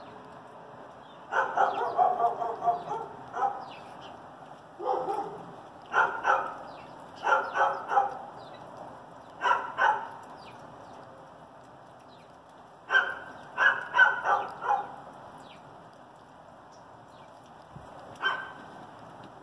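A dog barking in short volleys of a few barks each, recurring every few seconds.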